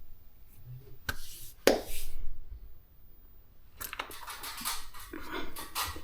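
Handling noises: two sharp clicks about a second apart, then a stretch of rustling and clattering near the end.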